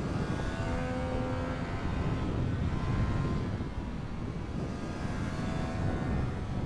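Triumph Street Triple 765 RS's inline three-cylinder engine running at a fairly steady pitch while riding, with the pitch drifting gently up and down, under heavy wind rush on the microphone.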